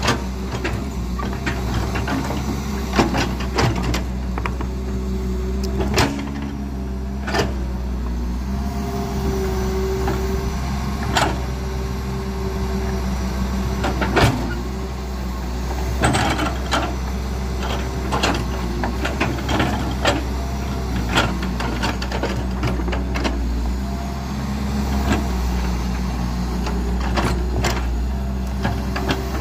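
Heavy engine running steadily with a low hum, with irregular clanks and knocks over it.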